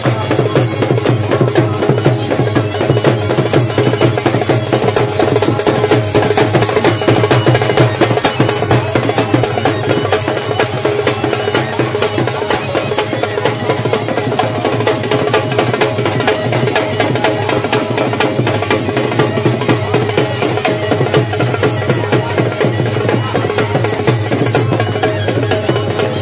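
Loud live folk band: rapid, dense drumming with a wind instrument playing held notes over it.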